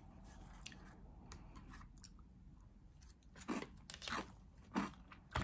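Close-up chewing of yogurt with crunchy chocolate flakes: faint at first, then several louder crunches in the last two seconds.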